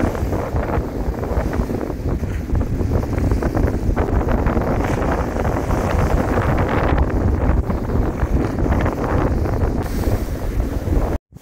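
Strong gusty wind buffeting the microphone, over storm-driven waves crashing and splashing against a concrete seawall.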